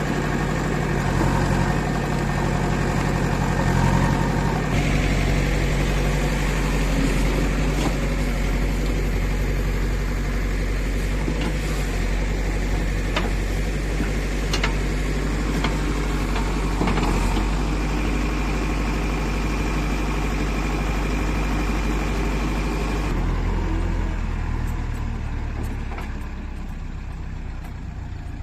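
Diesel engine of heavy earthmoving machinery running steadily, with light clanks here and there. Its note shifts about five seconds in, and it drops to a lower, quieter note near the end.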